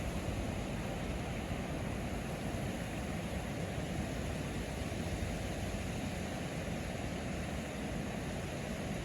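Steady, even rushing noise that is strongest in the low range, with no distinct events or changes.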